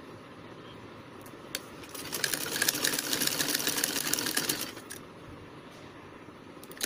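Black Singer sewing machine stitching lace onto net fabric: one run of rapid, even needle strokes starting about two seconds in and lasting roughly three seconds. A single click comes shortly before the run starts.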